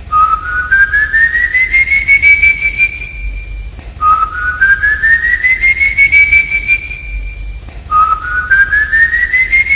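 Long eerie whistle, heard three times about four seconds apart: each note glides slowly upward, then holds at the top. It is the whistle of El Silbón, the whistling ghost of Venezuelan legend.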